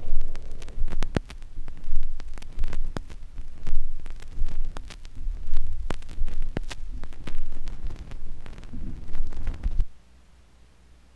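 Vinyl flexi-disc soundsheet on a turntable, past the end of its recording: a low throbbing pulse about once a second with surface crackle and clicks, cutting off suddenly about ten seconds in, leaving faint hiss and hum.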